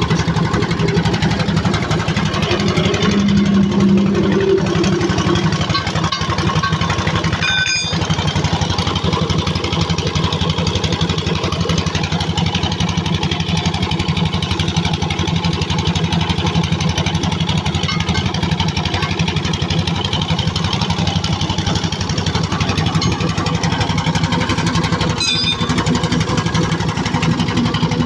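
An engine running steadily at idle with a fast, even firing beat. There are two very brief breaks in the sound, near 8 s and near 25 s.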